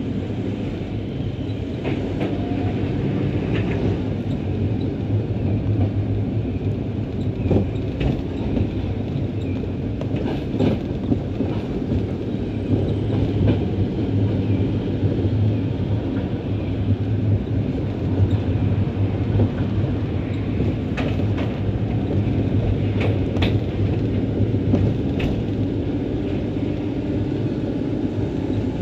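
Centram low-floor tram running close by: a steady low hum with scattered clicks and creaks.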